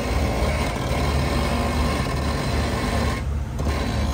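Off-road vehicle engine running with a steady, pulsing low rumble.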